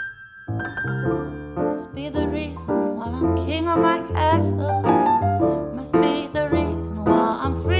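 Grand piano playing chords with a woman singing over it; her voice comes in about two seconds in.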